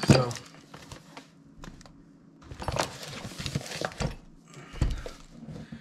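A steel-framed shooting rest and its packaging being handled and unpacked: scattered clicks and knocks, a stretch of rustling, and two low thumps in the second half.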